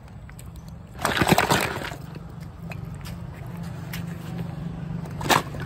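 Dry, crackly crunching of baked clay and fuller's earth being bitten, in a loud burst about a second in and a few sharp cracks near the end, over a steady low hum.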